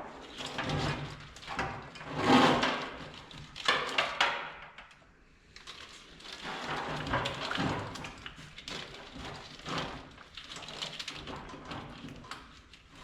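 Irregular rustling, scraping and knocks as a wiring harness is worked and pulled through a truck's engine bay by hand, coming in bursts, loudest about two seconds in.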